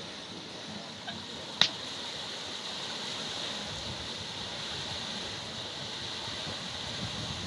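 Bull-driven Persian wheel running, with a steady rush of water pouring from its buckets. A sharp click comes about a second and a half in.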